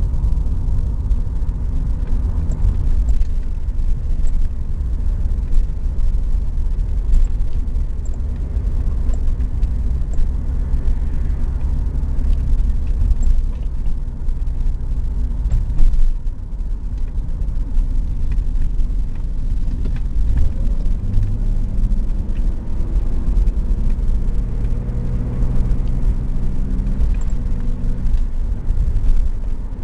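Classic car's engine and road noise heard inside the moving cabin: a heavy, steady low rumble. In the second half the engine note rises and falls, and a single louder thump comes about halfway through.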